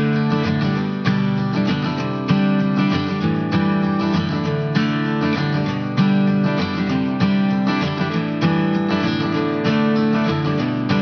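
Background music: strummed acoustic guitar with steady, regularly repeating strokes.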